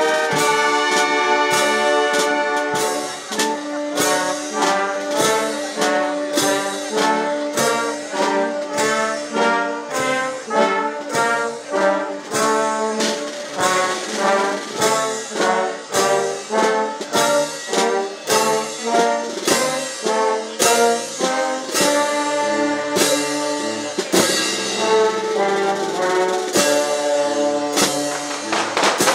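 Brass band music: trumpets and trombones playing a melody over a steady, regular beat.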